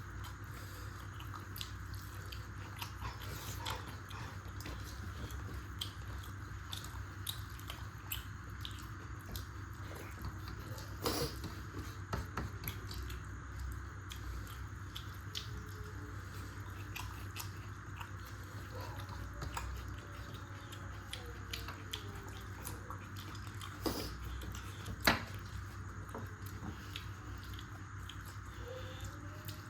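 A person eating rice and chicken curry: many small, scattered clicks and smacks of chewing over a steady low background hum, with a few sharper clicks, the loudest about 25 seconds in.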